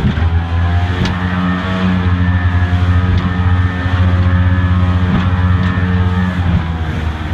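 Motorboat engine running steadily under power, heard from inside the cabin, over the rush of whitewater and spray hitting the window as the boat runs a rapid.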